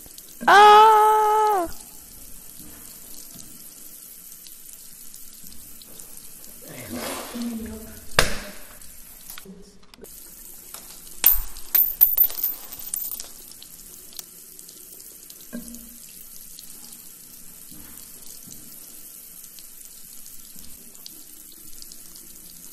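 Steady rushing, water-like noise, as of running water, under an underwater scene. About a second in, one loud held tone sounds for about a second; around seven to eight seconds a noisy swell ends in a sharp knock, and around eleven to thirteen seconds comes a quick cluster of clicks and knocks.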